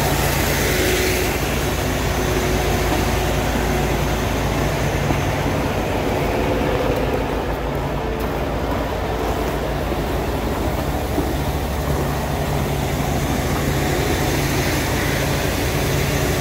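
Engine idling: a steady, unchanging hum with no revving.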